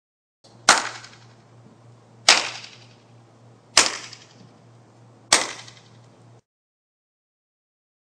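Four single hand claps about a second and a half apart, each followed by a ringing reverberant tail: a clap test of an auditorium before sound diffusers are fitted, showing its echo and reverberation. A faint steady low hum lies under them.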